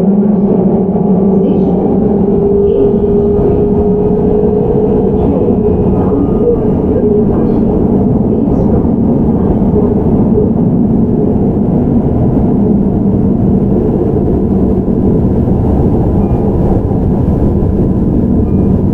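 Onboard running sound of a Keihan 13000 series electric train with Toyo IGBT VVVF traction: a steady wheel-and-rail rumble. A whine rises slightly over the first several seconds, then fades as the train runs on.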